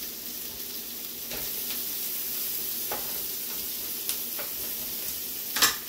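Sliced bell peppers sautéing in butter in a frying pan, sizzling steadily, with a few light clicks and a sharper knock near the end.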